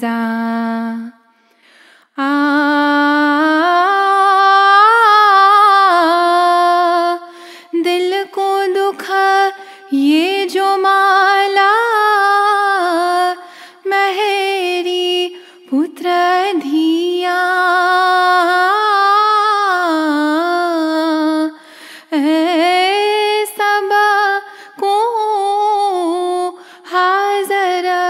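A woman singing a ginan, an Ismaili devotional hymn, unaccompanied, in long slow phrases with held, wavering, melismatic notes and short breaths between phrases, the first about a second in.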